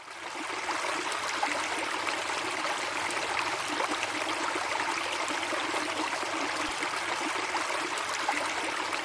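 Flowing stream water: a steady rushing and trickling that fades in at the start and begins fading out near the end.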